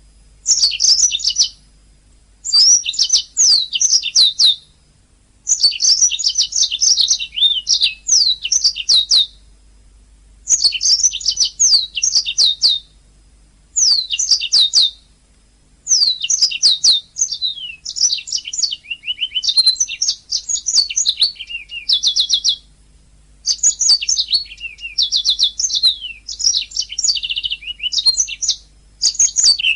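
Domestic canary singing: phrases of fast warbling sweeps and rolled trills, each one to three seconds long, with short pauses between them.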